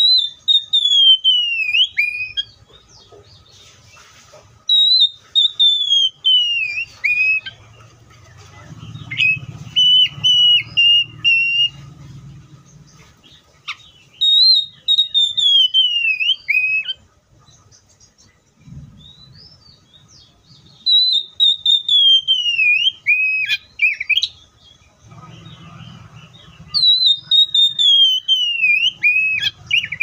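Oriental magpie-robin singing: a loud, clear whistled phrase that slides down from high to lower pitch, repeated about five times, with a run of short choppy notes about nine seconds in.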